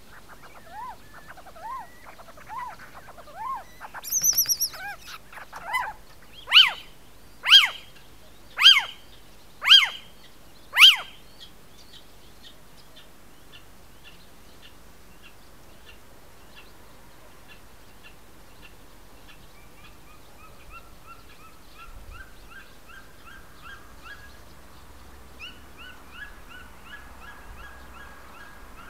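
Little owls calling during copulation. Arched calls repeat about once a second, a brief high squealing burst comes about four seconds in, and then five loud yelping calls follow about one a second. After that comes a long run of faint, rapid twittering notes that rises in pitch near the end.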